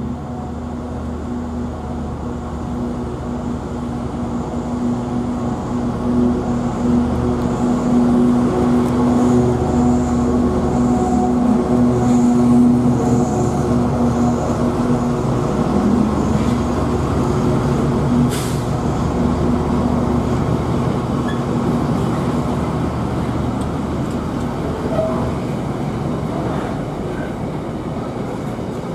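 Freightliner Class 70 diesel locomotive, with its GE PowerHaul V16 engine, running past at close range while hauling a container freight train. The engine's steady drone grows louder as the locomotive comes level and passes, then eases as the container wagons roll by behind it.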